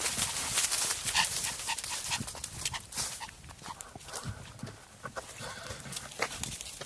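Footsteps on a mountain hiking trail: irregular steps, louder in the first few seconds and softer after.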